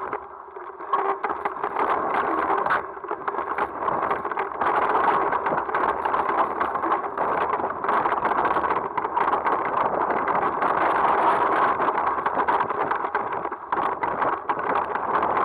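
Mountain bike clattering down a rough dirt trail: a constant rattle of many small knocks from the bike over a steady rush of noise.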